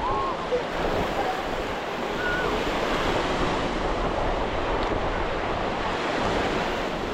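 Ocean surf washing steadily onto a sandy beach, mixed with wind buffeting the microphone.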